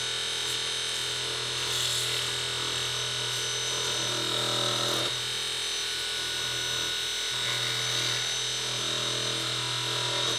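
Large electric motor running with a steady hum and whine while a hand-held tool scrapes against its spinning shaft end. The scraping swells about two seconds in and again around four to five seconds.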